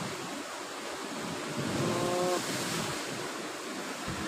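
Sea surf washing steadily against a rocky shore, a continuous rushing of waves. About two seconds in, a brief held tone with overtones sounds over it for about half a second.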